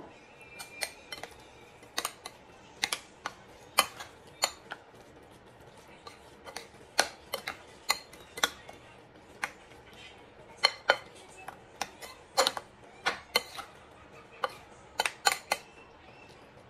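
Metal spoon clinking and scraping against a ceramic mixing bowl while stirring a thick mashed sweet potato mixture, in irregular sharp clinks about two a second.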